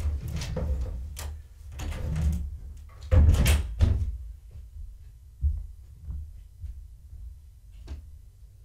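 A long-haired tabby cat rubbing and bumping against the camera, her fur brushing over the microphone: a run of knocks and rubbing noises with a deep rumble, loudest about three seconds in, then a few lighter taps.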